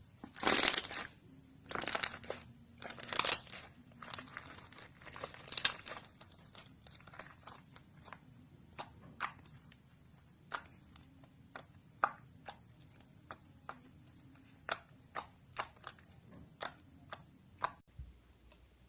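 Slime being pressed and squeezed by hand: a few longer crackling bursts, then a run of short, sharp pops about one or two a second.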